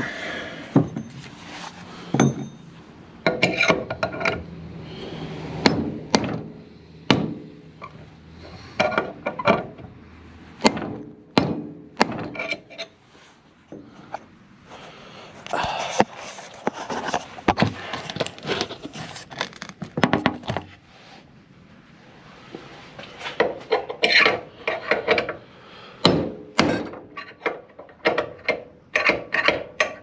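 Hammer blows on a worn Jeep Cherokee XJ door hinge held in a bench vise, knocking its hinge pin out: irregular sharp metal strikes in clusters, with scraping and rattling between them.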